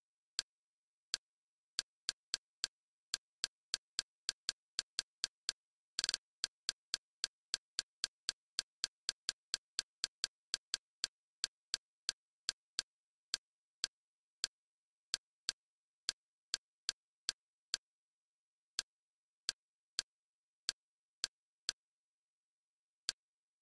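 Short, sharp menu-navigation clicks from the Kodi media-center interface, one per step as the highlight moves down a list. They come in quick runs of two to three a second, with a tight cluster about six seconds in, and thin out toward the end.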